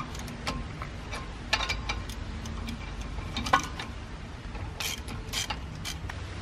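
Ratchet wrench clicking in short uneven runs as it turns a 14 mm bolt in the brake rotor's threaded jacking hole, forcing the stuck rotor off the hub; one sharp click about three and a half seconds in is the loudest.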